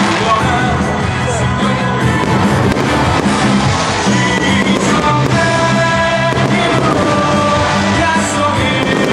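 Loud music with singing, playing steadily with held notes over a low beat.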